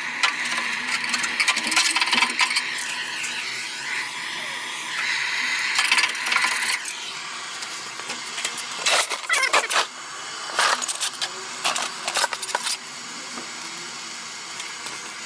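Handheld gas blowtorch hissing steadily as it heats rubbery underseal on a car's wheel arch. After about seven seconds the hiss stops and a run of short, sharp scrapes follows as the softened underseal is worked off the steel panel.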